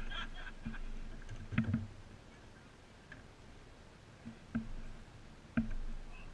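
A few separate hollow knocks and clicks as kayaks and paddles bump together, with the sharpest ones about a second and a half in and near the end.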